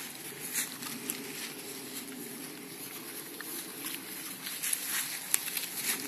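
Footsteps and rustling through grass and forest litter while walking, with scattered small clicks and crackles.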